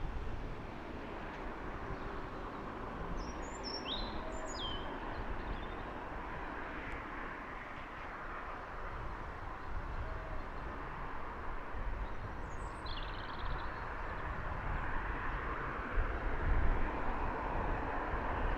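Small birds give short high chirps a few times, about four seconds in and again near twelve seconds, over a steady outdoor rumble that swells a little near the end.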